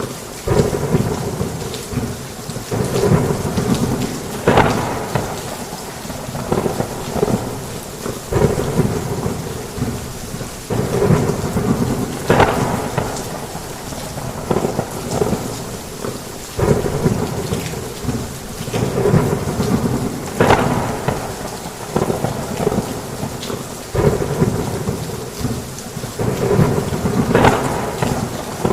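Heavy rain falling steadily with thunder rumbling, the low rumble swelling and fading every few seconds and a few sharper, louder surges along the way.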